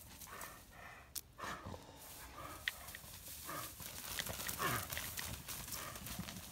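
A dog whining, several short cries that fall in pitch, faint against the open field.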